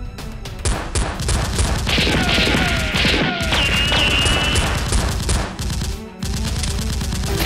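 Rapid gunfire sound effects, shot after shot, laid over background action music, with a few sliding whines around the middle.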